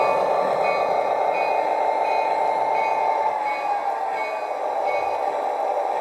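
Lionel Santa Fe El Capitan O-gauge model train rolling along the track with a steady rush and motor hum; the hum drops in pitch about three seconds in as the train slows to a stop. Short high beeps repeat about every 0.7 seconds and fade out near the end.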